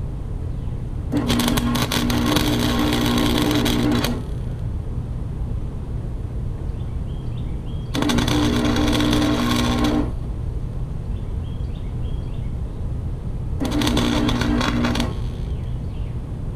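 Wire-feed welder tack-welding a cracked steel mower handle: the arc crackles three times, for about three seconds, then two, then one and a half, each with a steady buzzing tone. A steady low hum carries on between the welds.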